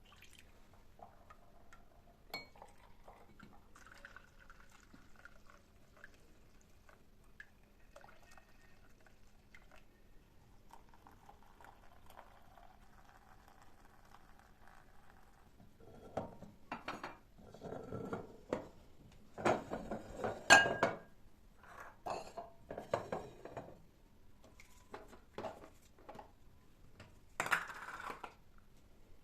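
Dishes and kitchenware clinking and clattering with water splashing, in a busy run from about halfway through and a short burst near the end.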